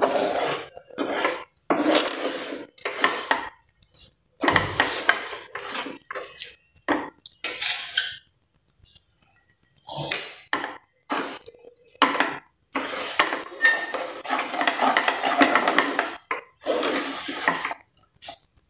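A spatula scraping and knocking against a non-stick frying pan in irregular strokes, stirring a thick sesame, peanut and jaggery mixture. A faint high whine comes and goes behind it.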